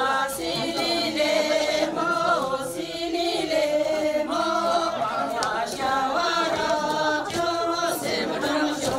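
A group of voices singing a Sherpa shyabru song together, in long sustained melodic phrases.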